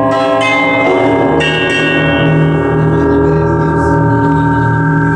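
Live electronic drone of layered, sustained bell-like ringing tones over a low pulsing hum. New higher tones enter about half a second and about a second and a half in.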